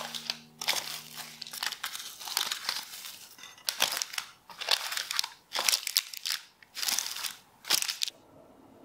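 Plastic cling film crinkling in a string of irregular sharp bursts as it is stretched over a pan of shaped brioche dough and pressed down around the rim, covering the dough to rise. The crinkling stops shortly before the end.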